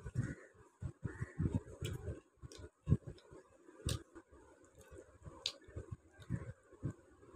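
Close-up eating sounds of a person eating rice and fried onion pakora with her fingers: irregular chewing and mouth sounds, with a few sharp clicks, the clearest about four seconds in.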